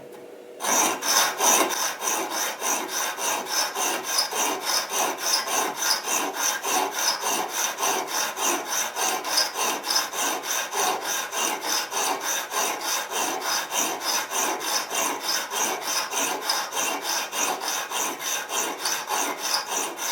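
Coarse 100/80 side of a Venev diamond sharpening bar rubbing on a steel vegetable-peeler blade in quick, even back-and-forth strokes. They start just under a second in. The blade is being ground flat to its factory bevel angle, evening out worn edges and a hollow middle.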